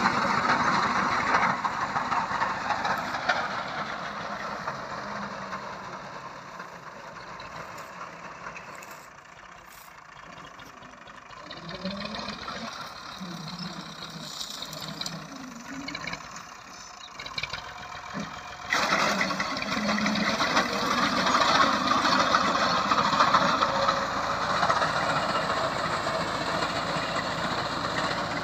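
Diesel tractor engine running under load as the tractor's reaper cuts standing wheat. It is fainter through the middle and grows suddenly louder about 19 seconds in, then stays at that level.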